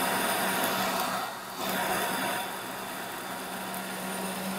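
Countertop blender motor running at speed, pureeing a thick chili sauce, with a steady hum under the whirring of the blades through the liquid. The level dips briefly about a second and a half in, then runs on a little quieter.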